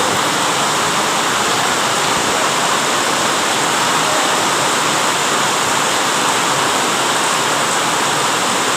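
Heavy rain falling, a loud steady hiss with no letup.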